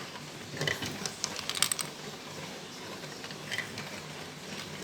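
Marbles clicking and rattling along a plastic marble run track: scattered light clicks, with small clusters about half a second in, near the middle and again later.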